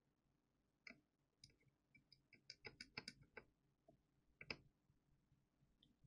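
Near silence with faint, scattered small clicks and ticks, a quick run of them in the middle, from hand soldering work on a circuit board.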